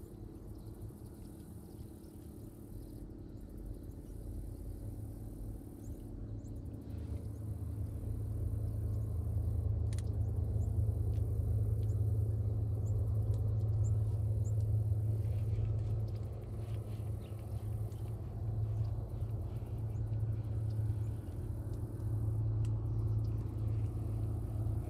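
A low, steady engine drone that grows louder over the first several seconds, then holds.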